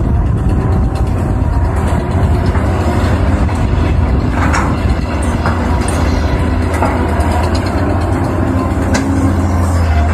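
Caterpillar 320 hydraulic excavator's diesel engine running steadily under working load as the machine swings and dumps, with a few short clanks.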